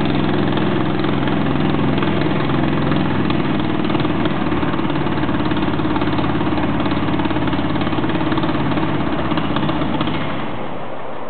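Mitsubishi A6M Zero fighter's radial engine running steadily at low power, a deep, even, multi-cylinder beat. Its level drops off about ten seconds in.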